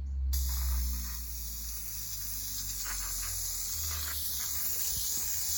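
Aerosol can of Gunk engine degreaser spraying in a steady hiss, starting about a third of a second in.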